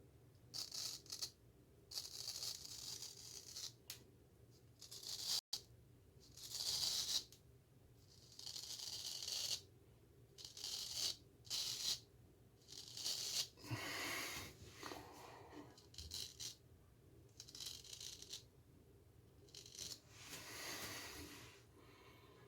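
Straight razor scraping through lathered stubble in a series of short strokes, about a dozen, each a crisp rasp of half a second to a second and a half, with brief pauses between.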